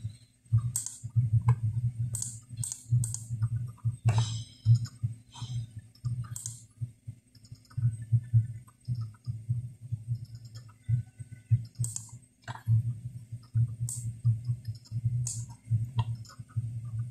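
Computer mouse clicks, about a dozen, scattered and irregular, over a continuous low hum.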